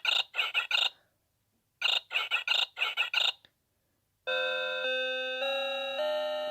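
Noah Seimitsu 'Fruity Melody' alarm clock sounding its electronic alarm: two quick runs of short chirping beeps with a short silence between them. About four seconds in, a melody in plain electronic tones starts.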